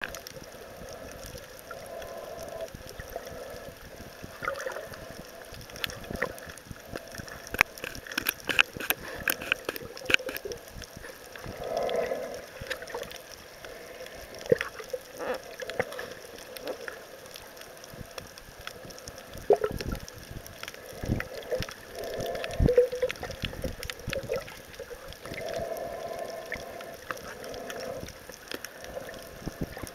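Underwater water noise, with air bubbles bubbling and gurgling in swells and scattered sharp clicks and knocks.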